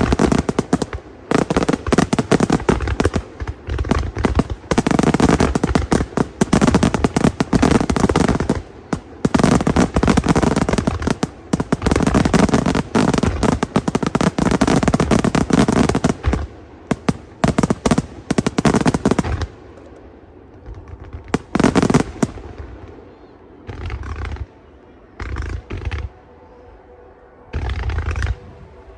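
Aerial fireworks going off in a dense, rapid volley of bangs with crackling. About two thirds of the way through it thins to scattered bursts, and only a few separate bangs remain near the end.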